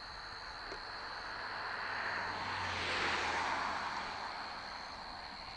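A passing vehicle: engine and rushing noise swelling slowly to a peak about three seconds in, then fading away.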